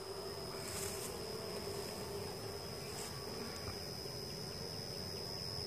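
A colony of European honeybees buzzing steadily in an opened hive, a low even hum with a thin high steady tone above it.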